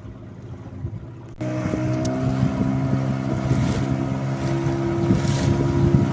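Fishing boat's engine running steadily with wind and water noise. About a second and a half in, the sound jumps suddenly louder and the engine's steady hum stands out plainly.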